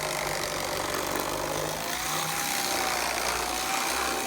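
Electric fillet knife running: a steady small-motor whine with a buzzing rattle, wavering slightly in pitch.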